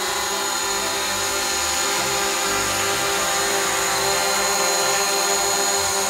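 Quadcopter drone hovering close by, a steady high-pitched propeller whine, over background music.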